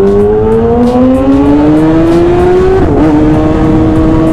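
Kawasaki ZX-6R 636 inline-four engine pulling with steadily rising revs as the motorcycle accelerates. About three seconds in, the pitch falters briefly, then holds steady.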